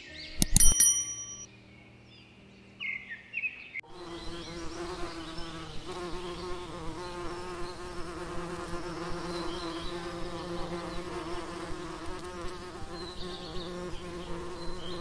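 A bright bell-like ding within the first second, then from about four seconds in the steady buzzing drone of many honeybees in flight.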